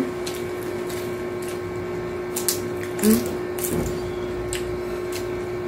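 Crisp tortilla chips and taco shells crunching between the teeth while eating: a scatter of short, sharp crunches spread through, over a steady low hum.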